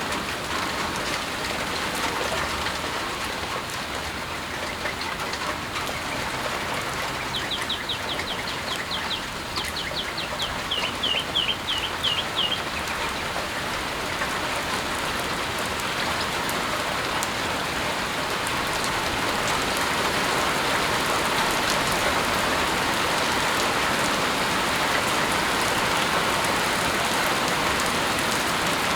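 Steady rain falling, a little heavier from about two-thirds of the way in. About seven seconds in, a bird calls a rapid series of short high notes for about five seconds.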